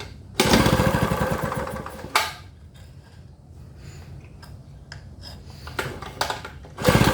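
Gasoline inverter generator engine cranked over twice by its pull-start during a spark test, turning fast with a rapid even chugging but not firing. The first pull lasts about two seconds and the second comes near the end.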